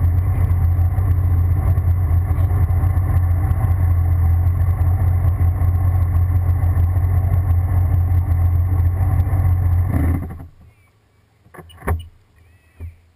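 Sea-Doo GTX jet ski engine idling with a steady deep hum, then shut off about ten seconds in; two or three short knocks follow in the quiet.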